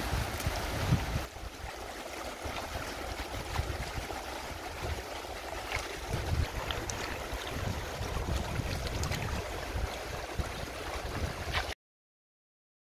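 Shallow river rushing over stones, a steady hiss with gusts of low rumble on the microphone and a few small splashes. It cuts off suddenly to silence about a second before the end.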